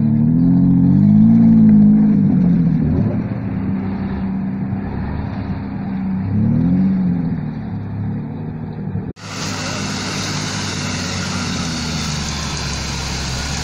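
Off-road 4x4 engine revving up and down while driving through deep mud, its pitch rising and falling several times. About nine seconds in the sound breaks off abruptly and switches to a steadier engine with more hiss of tyres and mud.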